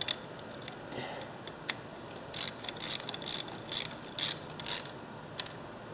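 Socket ratchet clicking through about half a dozen short strokes, about two a second, tightening a bolt.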